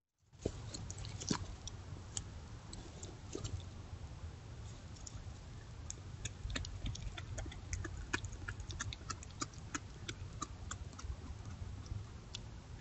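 Coyote chewing and crunching on deer bones: irregular sharp clicks and cracks, coming more often in the second half, over a steady low rumble of background noise.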